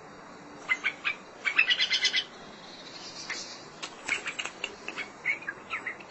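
Bulbul singing: short chirps and whistled notes, with a quick run of notes about a second and a half in and more scattered notes after.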